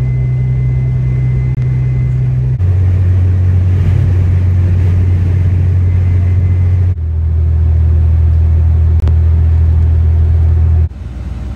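Steady low rumble of a vehicle driving on a snowy highway, heard from inside the cabin: engine and road drone. It shifts abruptly in pitch and loudness about two and a half, seven and eleven seconds in, and drops quieter at the last change.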